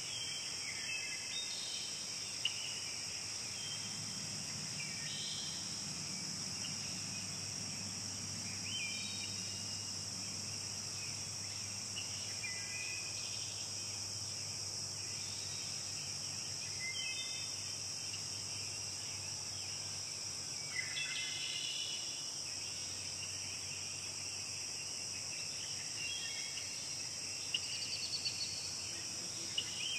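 A steady, high-pitched chorus of crickets or other insects trilling continuously. Occasional short bird chirps break in, with a cluster of them about two-thirds of the way through.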